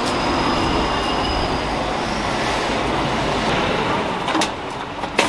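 A train passing with its wheels squealing: a steady rumbling noise with a thin, high squeal that rises a little and fades about two seconds in. Two sharp clicks come near the end.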